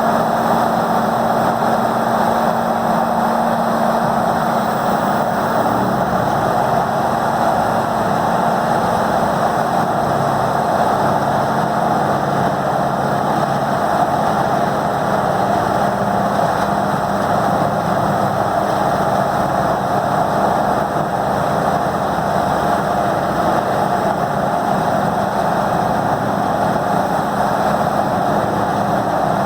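Peterson 5710D horizontal grinder with its 1125-horsepower diesel engine, running loud and steady with a constant engine pitch.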